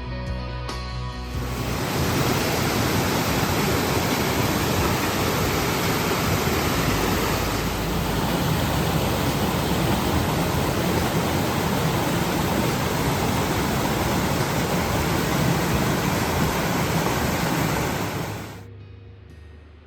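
Loud, steady rush of water starting about a second and a half in as the music ends, cutting off sharply near the end.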